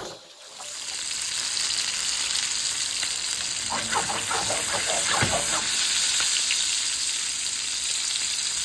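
Spice-crusted salmon fillets frying in hot oil in a pan: a steady sizzle that comes up within the first second and holds.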